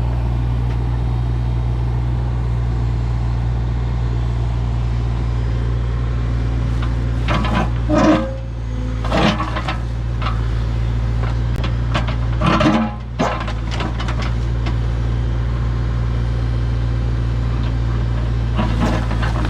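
Heavy diesel engine of earthmoving equipment running steadily, with two short spells of clanking and scraping partway through.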